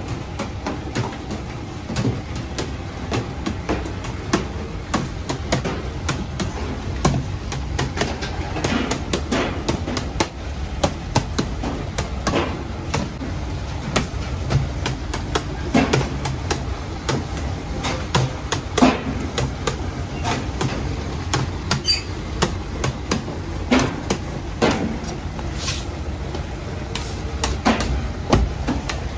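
Bakery work noise: irregular sharp knocks and clatter as dough is cut, shaped and set down on a stainless-steel bench and metal trays, over a steady low hum.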